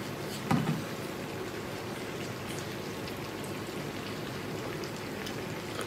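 Dry pot of spicy bullfrog sizzling on a lit portable gas stove: a steady hiss with faint scattered ticks. About half a second in, the eater gives a short low hum.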